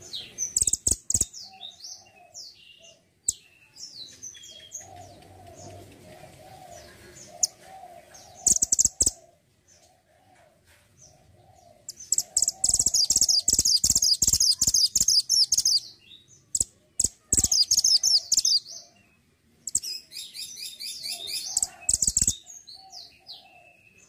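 Male minivet (mantenan gunung) singing in bursts of rapid, high chirping trills, the longest lasting about four seconds. Fainter, lower warbling notes come between the bursts.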